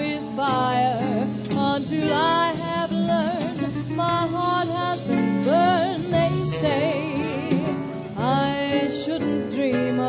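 Small swing band playing a tune live: a wavering lead melody over guitar and upright bass.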